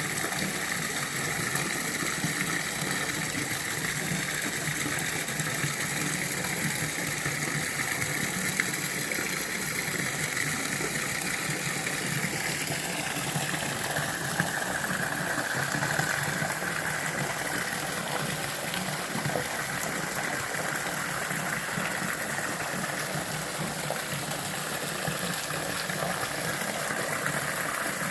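Small hot-spring waterfall splashing and rushing steadily, its tone turning slightly brighter about halfway through.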